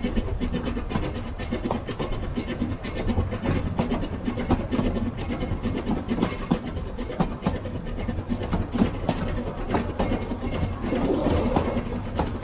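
Narrow-gauge steam locomotive running along the line: a steady low rumble with irregular clicks and knocks from the wheels on the track.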